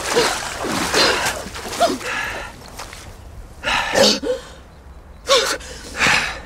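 A person gasping and whimpering in short, irregular breaths, each a brief rising-and-falling voiced catch with breath noise, loudest around the middle and near the end.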